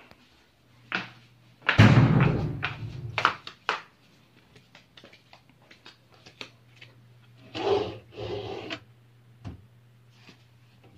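Knocks and scraping from wooden furniture being handled, one rough stretch about two seconds in and a shorter one near eight seconds, with light clicks between; the scraping fits a wooden cabinet drawer sliding. A steady low hum lies under it all.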